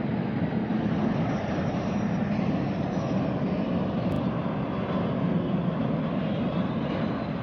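Aircraft engine noise: a steady, even rumble with hiss above it.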